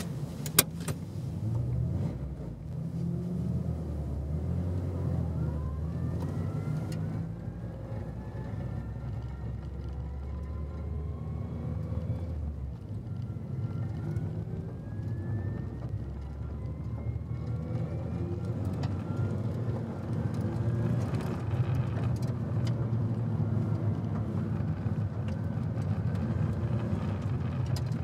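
Turbocharged SR20DET four-cylinder of a 1999 Nissan Silvia S15 Spec R, heard from inside the cabin, pulling away and accelerating, its revs climbing in several long rises and dropping back at each gear change. A sharp click about half a second in.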